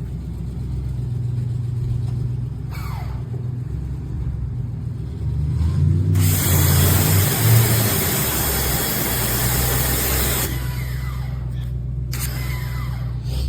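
Gas pressure washer engine running steadily. About six seconds in the spray gun is triggered and a loud hiss of high-pressure water spray runs for about four seconds, then comes again briefly near the end.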